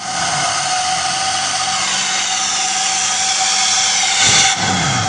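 Intercity bus engine running loud through its growling ('ngorok') exhaust, with a steady high whine over it. Low throbbing picks up near the end.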